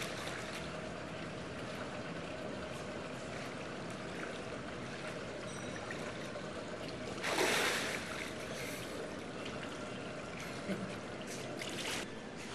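Swimming-pool water lapping and sloshing around a swimmer. There is a louder splash about halfway through as he comes up from under the water, and more splashing near the end as he stands up and wades.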